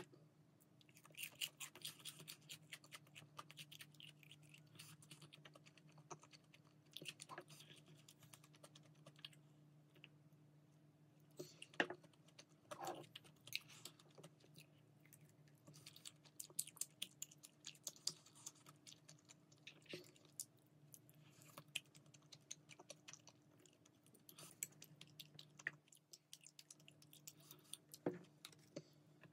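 Close-miked chewing of crispy fried chicken and tteokbokki: quiet crunches and wet clicks, with a couple of louder knocks, about twelve seconds in and near the end. A faint steady hum sits underneath.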